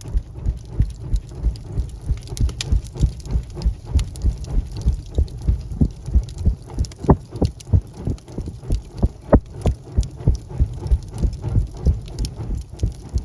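Wood fire crackling in a fireplace: a dense run of sharp pops and snaps over a low rumble that swells in quick, regular pulses.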